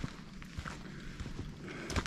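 Footsteps on rocky, gravelly ground: irregular light crunches and knocks a few tenths of a second apart.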